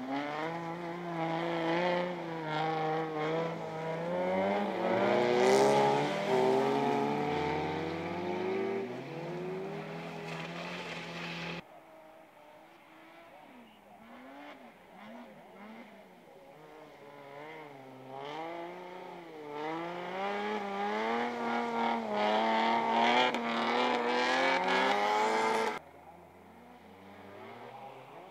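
Folkrace car's engine racing hard on a dirt track, its pitch climbing and dropping as it accelerates, lifts and shifts through the corners. The engine is loud twice, each time cutting off abruptly, and is fainter in between.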